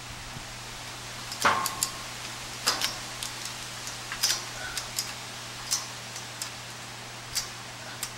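A series of about ten sharp, irregular knocks and taps, the loudest about a second and a half in with a short ring after it, over a steady low hum.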